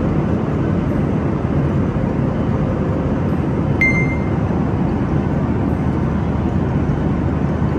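Steady noise of an airliner cabin in flight, engine and air noise heaviest in the low range. A single short high chime sounds about four seconds in.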